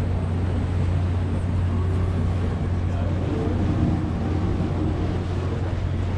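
Passenger ferry under way: its engine gives a steady low drone, with a broad rushing noise of water and wind over it.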